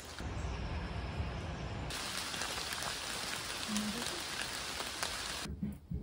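Steady rain falling through forest trees, an even hiss of drops. The sound changes abruptly about two seconds in, turning brighter, and near the end gives way to quieter, uneven low knocks.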